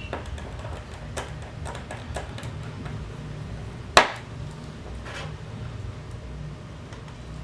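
Light metallic clicks and taps from handling the opened laptop hard disk and its small parts with tools, with one sharp click about four seconds in.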